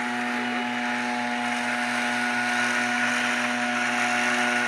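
Small engine of a two-man tea harvester running steadily at working speed while the cutter shears the tops of tea bushes, growing a little louder.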